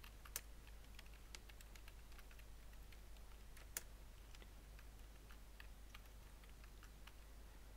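Faint computer keyboard typing: scattered soft key clicks, with two sharper clicks about half a second and nearly four seconds in.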